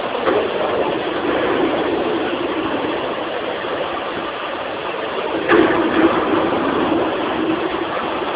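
Steady, loud mechanical running noise, like an engine at idle, swelling briefly about five and a half seconds in.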